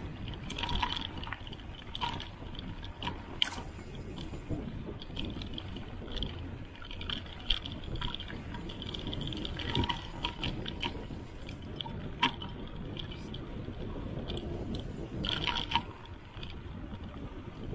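Mountain bike riding down a dirt singletrack: a steady rumble of tyres and frame vibration, with scattered sharp knocks and rattles as the bike hits bumps.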